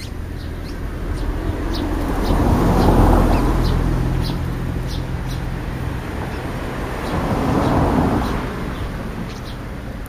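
Road traffic passing, swelling loudest about three seconds in and again near eight seconds. Short high bird chirps sound over it throughout.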